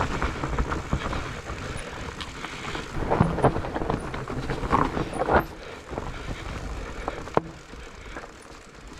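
Mountain bike riding down a rough dirt trail, heard from a camera mounted on the rider: a steady rush of tyres over dirt and roots with frequent knocks and rattles from the bike, a sharp knock about seven seconds in, and quieter riding near the end.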